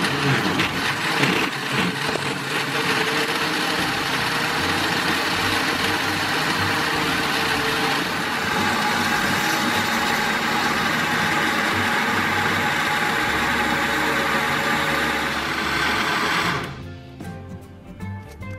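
Electric countertop blender running at high speed, pureeing leafy greens and fruit pieces into a smooth green juice. It cuts off near the end, leaving only background music.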